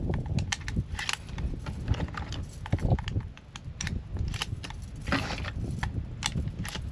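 Shotgun shells being handled and pushed into a Remington 870 pump shotgun's tube magazine: a string of irregular clicks and knocks, with a longer scraping rasp about five seconds in.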